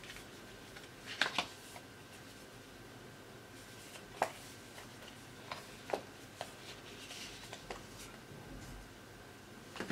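Paper and thin card rustling, with short crinkles and light taps, as the paper documentation folder from a phone box is opened and its leaflets handled. The crinkles come in a few separate bursts: a double one about a second in, then scattered ones through the middle, and another near the end.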